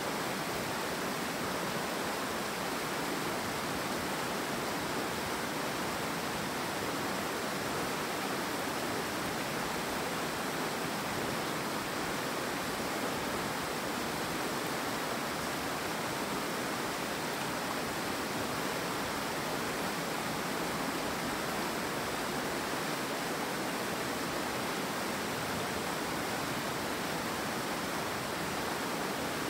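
Steady rush of river water through a rocky gorge: an even hiss without breaks or changes.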